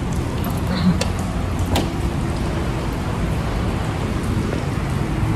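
Steady rushing noise on a phone microphone, with two sharp clicks about one second and just under two seconds in as a car door is opened to get out.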